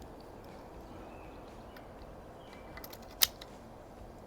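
Faint steady outdoor background with one sharp, short click about three seconds in.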